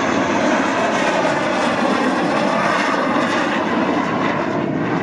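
Canadair CT-133 Silver Star jet trainer flying past, its Rolls-Royce Nene turbojet loud and steady, easing slightly near the end.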